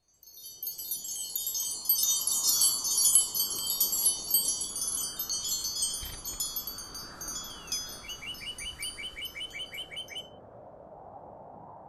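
Wind chimes ringing, many high metal tones overlapping, then cutting off suddenly about ten seconds in. Near the end comes a rapid run of chirps, about five or six a second, over a soft steady rushing noise.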